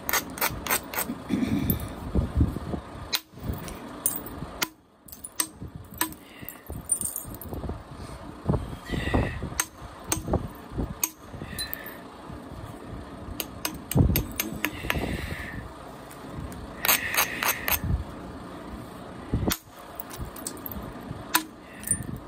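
A copper-tipped billet striking the edge of a thin flint biface in percussion flaking: a series of sharp clicks and knocks at irregular intervals as flakes snap off. Several short, higher ringing sounds come between the strikes.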